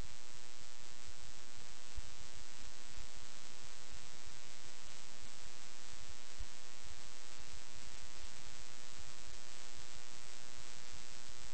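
Steady hiss with an electrical mains hum running under it, and scattered faint low thuds.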